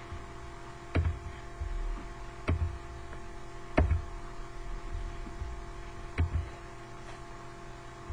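Steady electrical hum from the recording setup, broken by about five short, sharp clicks or knocks, two of them close together about six seconds in.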